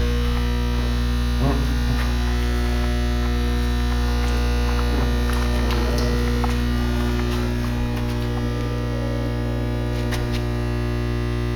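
Steady electrical mains hum with a dense buzz of overtones, from the building's wiring and equipment, with a few faint clicks near the end.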